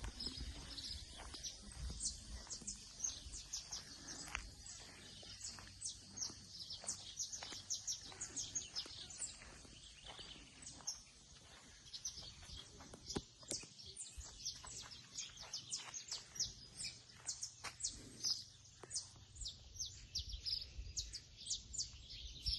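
Many small birds chirping at once, a dense stream of short high chirps with no break.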